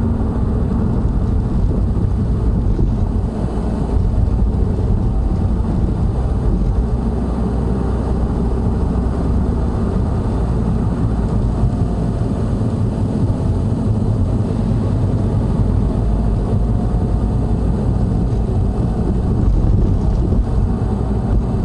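Subaru WRX STI (VAB) heard from inside the cabin while driving: a steady low rumble of road and running noise, with a faint whine coming and going. The noise comes from the front, and the owner suspects a worn front hub bearing.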